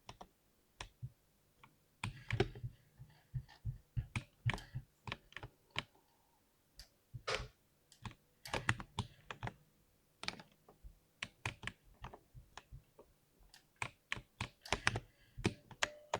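Typing on a 60% computer keyboard: irregular bursts of key clicks with short pauses between them.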